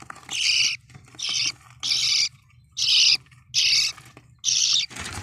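Budgerigar giving a run of about six harsh, short squawking calls, one every half second to a second.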